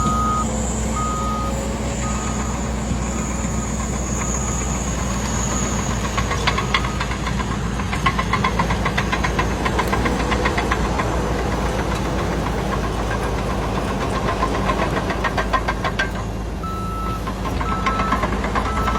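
Truck engine running steadily, with a short beep repeating about once a second at the start and again near the end, typical of a reversing alarm. A fast clattering rattle rides over the engine through the middle stretch.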